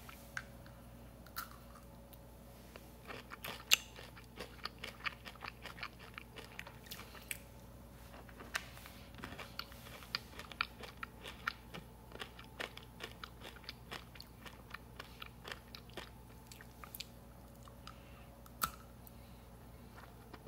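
Close-up chewing of a Peanut Butter Mega M&M's candy: the hard sugar shell crunches in a quick run of sharp crackles, densest and loudest about three to twelve seconds in, then thinning to a few scattered crunches with one sharp crack near the end.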